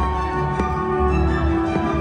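Music with sustained chords over a steady deep bass, with a couple of short sharp firework bangs, one about half a second in and one near the end.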